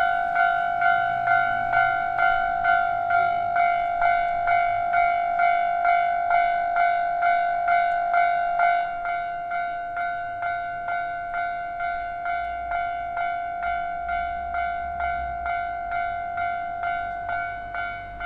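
Railway level-crossing warning bell ringing, a clanging tone repeating steadily about twice a second. It drops somewhat in level about halfway through, and a low rumble comes in underneath near the end.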